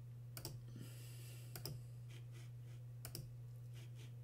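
Faint clicks of a computer mouse, a few scattered single and paired clicks, over a steady low electrical hum.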